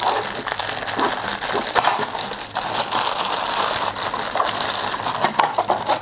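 Clear plastic packaging bag crinkling and crackling continuously as a black plastic trimmer holder tray is worked out of it by hand.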